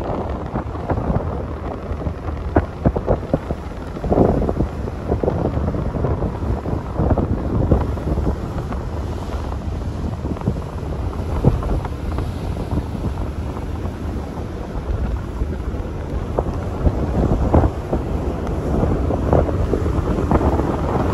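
Wind buffeting the microphone on the open deck of a ferry under way: a steady low rush with frequent irregular gusts.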